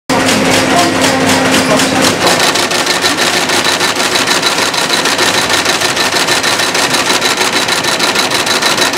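Welt-stitching machine sewing yellow thread into a Dr. Martens boot, its needle running in a rapid, even clatter. A steady hum under it stops about two seconds in.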